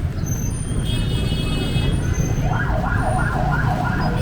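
An electronic vehicle siren starts about halfway through with a fast, repeating rising yelp, over a steady rumble of street traffic and rain. A brief high electronic tone sounds about a second in.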